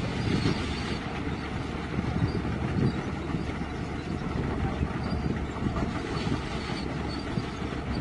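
Hyundai crawler excavator's diesel engine running steadily as the machine works, a continuous low rumble.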